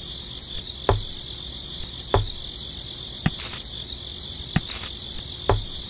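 Small stones set down one at a time into a toy tractor trailer: five sharp knocks, some with a low thud, spaced about a second apart. A steady high-pitched chirring runs underneath.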